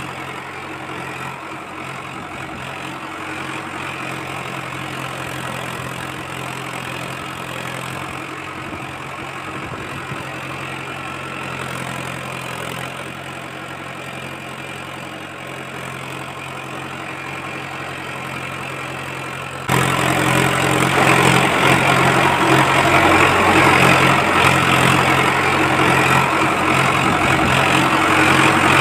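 A steady idling engine sound, like a tractor engine ticking over; it jumps to clearly louder about twenty seconds in.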